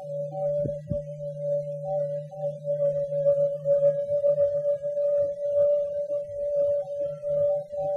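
Electronic sci-fi soundtrack drone: a steady, wavering mid-pitched tone over a low hum, with scattered short bleeps. The hum breaks up about halfway through.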